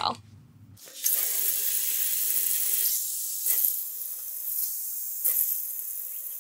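Warm water poured from a measuring cup into a stainless steel saucer pan of finely ground puppy kibble and milk-replacer powder: a steady hissing splash that starts about a second in and eases a little toward the end.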